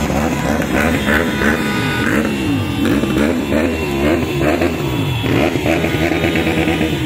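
A group of motorcycles riding past, several engines revving up and down over one another.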